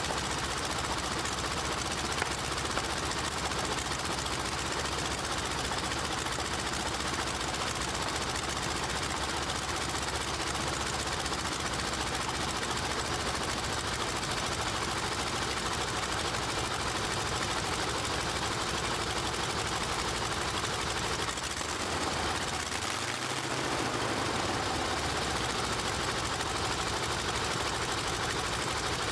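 Radial aircraft engine running on a test stand, turning a four-blade propeller, with a fast, steady, rattling beat. About three-quarters of the way through the low part of the sound drops away briefly and then comes back as the engine speed changes.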